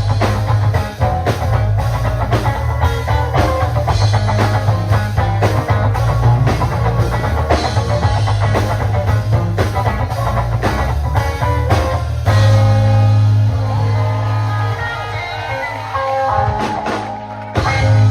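Live gospel band with drum kit, electric guitar and bass playing out the end of a song. About twelve seconds in, the steady drumming stops and the band holds a closing chord under guitar runs, then ends on one final loud hit near the end.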